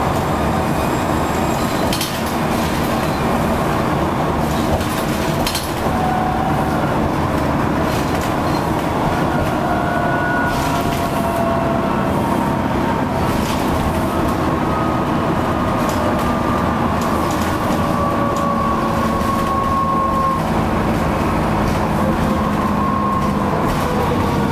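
Interior sound of an Alexander ALX400-bodied Trident double-decker bus on the move: a steady engine drone with body and window rattles and knocks, and faint whines that slowly rise and fall in pitch, the turbocharger whistle this bus is known for.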